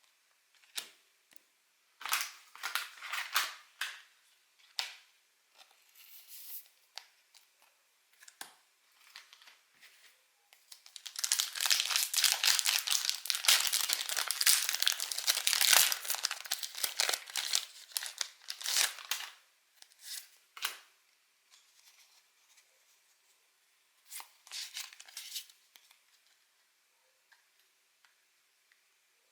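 Pokémon booster pack wrappers being torn open and crinkled by hand: short crackles at first, then a long stretch of continuous tearing and crinkling in the middle, and another brief burst near the end.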